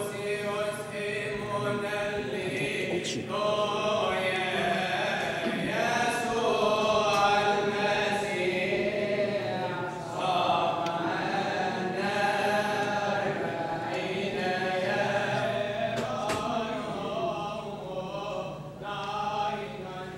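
Coptic liturgical hymn chanted by a group of voices, a continuous melismatic chant accompanying the distribution of Holy Communion.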